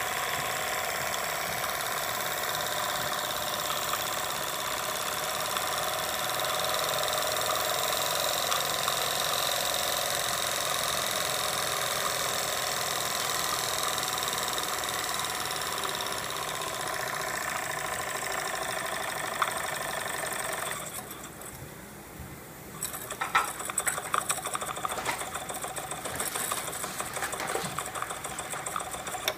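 Jensen Model 75 toy steam engine running with a fast, steady mechanical rhythm and a hiss, driving a belt-linked Lego pump jack. About two-thirds of the way through the sound drops away briefly, then returns less even, with scattered clicks and knocks.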